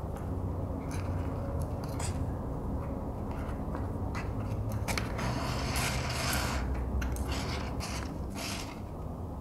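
Leather being hand saddle-stitched with two needles: thread drawn through the punched holes in short rasping, creaking strokes, with one longer pull a little past halfway.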